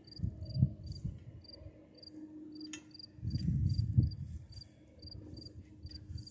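A cricket chirping steadily in a quick, even rhythm, about two or three short high chirps a second. Gusts of wind rumble low on the microphone near the start and again around three to four seconds in.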